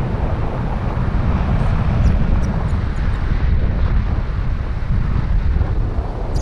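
Steady low rumble of wind buffeting a selfie-stick camera's microphone as a tandem paraglider flies through the air.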